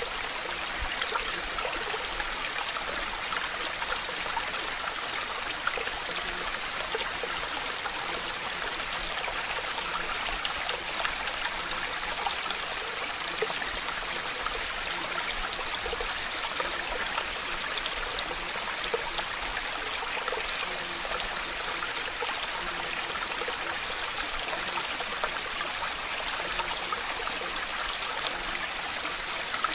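Steady water noise: an even, unchanging hiss with faint scattered ticks.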